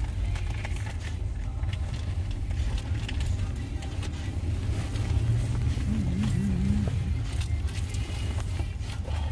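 Steady low rumble of road and tyre noise inside a moving Tesla electric car, with no engine sound. A short wavering low hum comes in about six seconds in.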